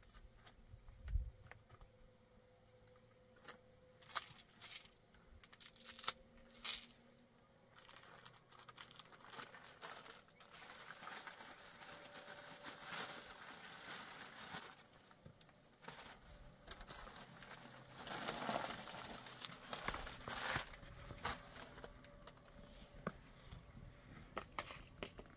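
Rustling and crinkling handling sounds, with scattered light knocks and clicks and two longer stretches of rustling.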